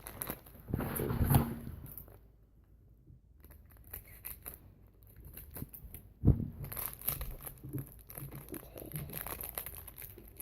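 A small plastic blind bag being crinkled and torn open by hand, with scattered rustling and crackling and one sharp knock about six seconds in.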